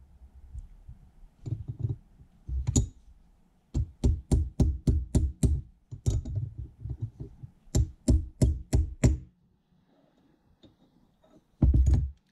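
Small ball-peen hammer tapping a steel pin, set with Loctite 609, into the cross-hole of a Suzuki TS125 motorcycle shift shaft that rests on a metal block. Sharp metal taps come in quick runs of about four a second, with a pause near the end before a last few taps.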